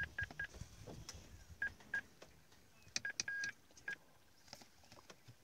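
Short electronic beeps, all at the same pitch, come in quick runs of two or three. One longer beep sounds about three seconds in, and faint clicks fall between them.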